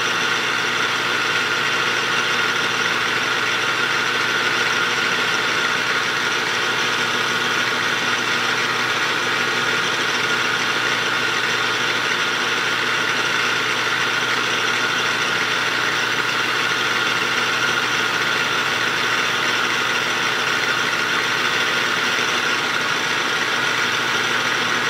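Metal lathe running at a steady speed, its motor and gear train giving an even hum made of several fixed tones, while a narrow tool cuts into the small spinning workpiece.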